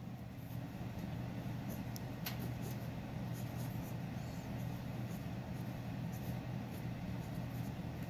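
Mechanical pencil scratching on paper in short, faint strokes while a structure is drawn, over a steady low hum.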